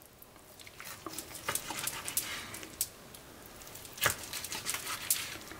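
Kitchen knife slicing through a cooked steak on a plastic cutting board: scattered clicks and taps as the blade cuts and meets the board, the sharpest about four seconds in and again about a second later.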